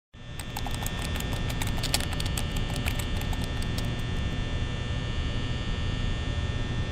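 A steady low hum with faint high steady tones. Over the first four seconds a run of sharp crackling clicks sounds over it, thinning out and stopping.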